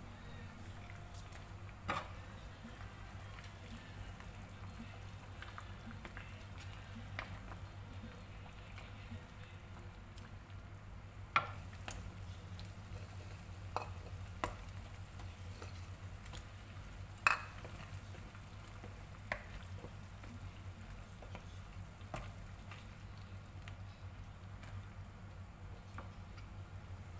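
Smoked catfish simmering in coconut-milk broth in a pot: a faint, steady bubbling over a low hum, with sharp pops or clicks every few seconds.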